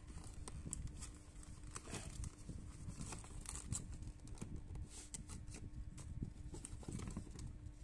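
Cardboard box and plastic packaging rustling and crinkling as items are pulled out of the box by hand, with irregular crackles and taps. A faint steady hum runs underneath.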